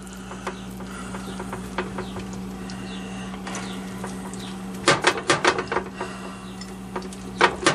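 Silicone pastry brush dabbing melted butter onto a raw chicken, with quick runs of clicks and taps about five seconds in and again near the end as the brush knocks in the ceramic butter bowl, over a steady low hum.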